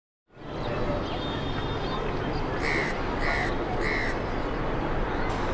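A crow cawing three times, about half a second to a second apart, over the steady low hum of a helicopter in flight.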